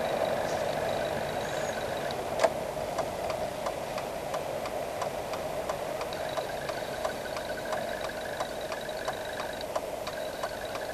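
Car engine running at low speed inside the cabin. A sharp click comes about two seconds in, then the turn-signal relay ticks evenly at about three ticks a second.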